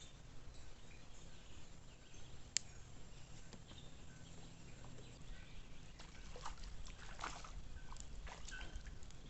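Quiet outdoor ambience with one sharp click about two and a half seconds in, then scattered clicks and rustles from handling something near the end.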